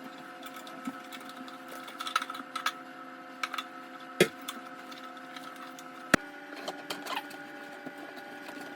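Small clicks and two sharp knocks from tightening the ring light's mount on its tripod stand, over a steady hum made of several held tones.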